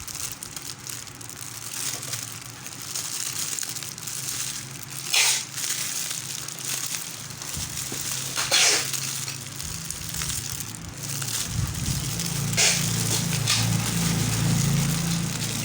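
Packaging being unwrapped and handled, with a steady crinkling and louder sharp crackles about five, eight and a half and twelve and a half seconds in. A steady low hum joins near the end.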